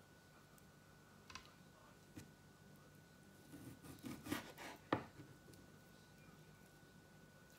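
Kitchen knife cutting raw beef into small pieces on a wooden chopping board: faint knocks of the blade reaching the board, a quick cluster of them about four seconds in and the sharpest one about five seconds in.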